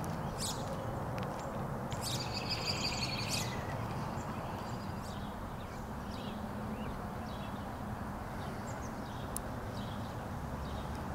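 Outdoor ambience: small birds chirping on and off, with one longer song phrase about two seconds in, over a steady low background rumble.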